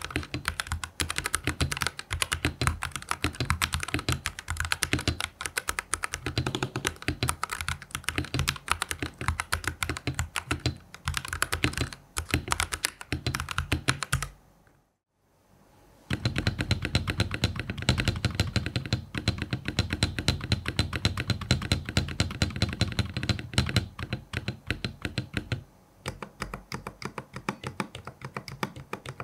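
Cooler Master CK720 65% mechanical keyboard, with factory pre-lubed switches and stabilizers and silicone dampers inside, being typed on fast in a sound test: a dense run of keystrokes. There is a brief silence about halfway through, after which the typing comes back deeper and fuller, and it thins out to sparser keystrokes near the end.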